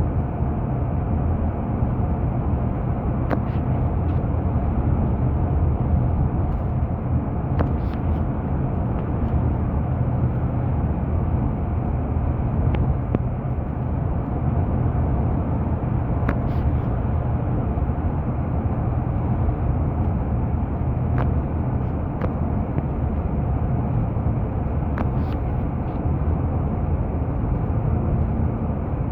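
Steady road and engine rumble of a car driving on a highway, heard from inside the cabin, with a few faint, irregular ticks.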